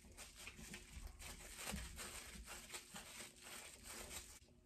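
Thin clear plastic bag crinkling and rustling as it is twisted and tied shut, a faint quick crackle that stops abruptly near the end.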